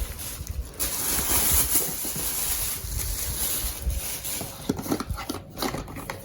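A shopping bag rustling and crinkling steadily as items are pulled out of it, with a few sharper crackles and knocks near the end.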